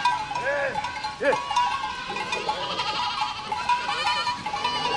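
A herd of goats bleating, several calls overlapping, with one loud bleat about a second in.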